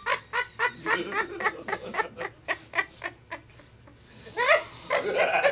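A group of people laughing hard: quick repeated bursts of laughter that die down about three seconds in, then a louder, higher laugh near the end.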